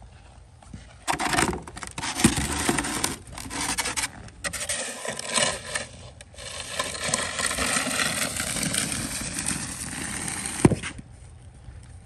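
Snow pusher shovel scraping snow along pavement in several long pushes with short breaks, ending with a sharp knock of the blade near the end.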